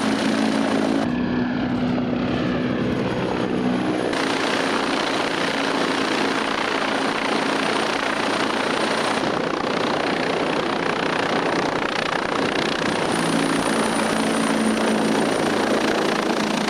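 T129 ATAK attack helicopter in flight, its rotor and twin turbine engines running loud and steady with a thin high whine over dense rotor noise. The sound shifts abruptly a few times, at about one, four, nine and thirteen seconds in.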